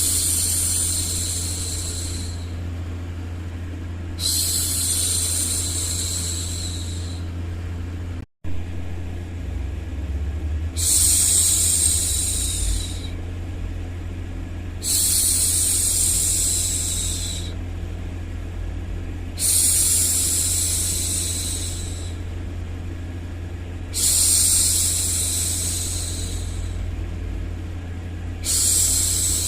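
A woman's long 'shhh' hushing sounds for soothing a baby, each lasting two to three seconds and repeating about every four to five seconds, over a steady white-noise bed with a low hum. The sound cuts out for a split second about eight seconds in.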